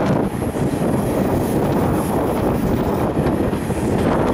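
Wind buffeting a microphone held out of a moving train's window, over the steady running of a Class 37 diesel locomotive's English Electric V12 engine close by.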